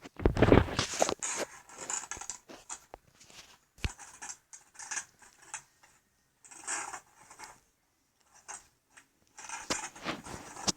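Action-figure packaging being opened: irregular rustling, scraping and clicking of cardboard and plastic, in short bursts with quiet gaps between.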